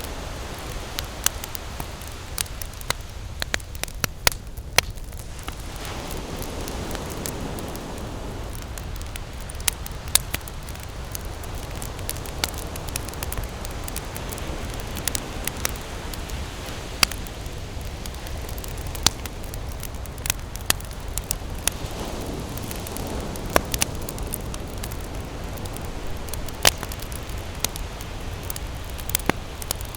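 Wood campfire burning, with sharp, irregular crackles and pops over a steady low rush.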